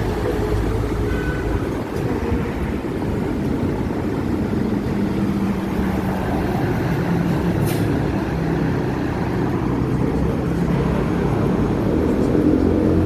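Hong Kong double-decker tram running steadily, a low rumble with a motor hum that grows a little louder near the end.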